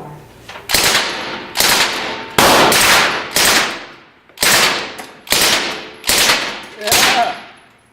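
Gunfire: about eight single aimed shots, roughly one a second, each dying away over most of a second.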